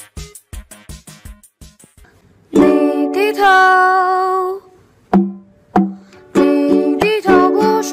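Background music. A short, beat-driven pattern of clipped notes runs for about two seconds. After a brief lull, a song with plucked strings and a singing voice begins: first long held notes, then rhythmic strummed chords.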